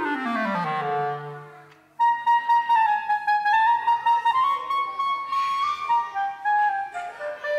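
Solo clarinet sliding down in a long falling glissando to a low held note, then, after a short pause, playing a quick tune of short, separate notes higher up.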